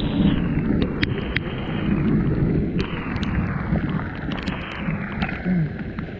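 Heavy rain and wind on a GoPro's microphone, a steady rumbling hiss, with raindrops tapping the camera housing as scattered sharp clicks.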